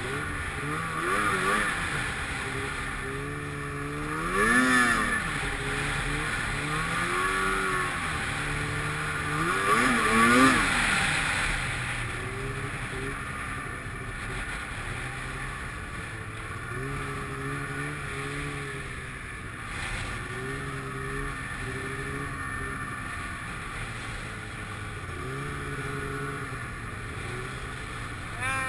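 Snowmobile engine running under throttle. It revs up and back down sharply twice, about four and ten seconds in, then runs lower and steadier with small rises and falls in speed.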